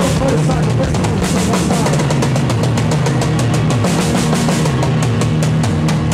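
Live rock band with the drum kit to the fore: rapid snare and tom fills with cymbal hits over held electric guitar and bass notes.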